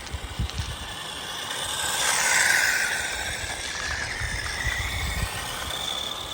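Small-scale electric RC crawler truck driving on a dirt and gravel road, its motor and gears whining with tyres crunching over loose ground; it gets louder to a peak about two and a half seconds in, then eases off.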